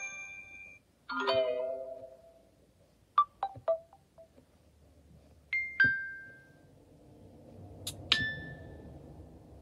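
An Android phone playing short notification-tone previews one after another. A chime comes about a second in, a quick run of blips around three seconds in, then a pair of pings midway and another pair near the end.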